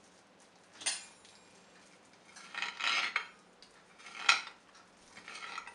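Pizza-cutter wheel rolling through a rolled omelette and scraping across a hard chopping board: four separate cutting strokes, the longest near the middle and the loudest a little after.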